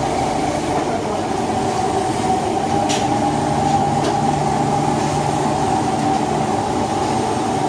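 Steady rumbling hum of commercial kitchen equipment running, with a constant tone throughout; a deeper hum joins about three seconds in.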